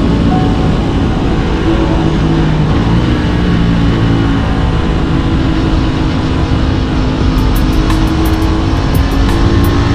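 Aprilia RS 660's parallel-twin engine running at road speed under wind rush, its pitch holding and stepping as the throttle changes. A quick, even ticking of about four a second, like a hi-hat, comes in a little after halfway, with background music blended in.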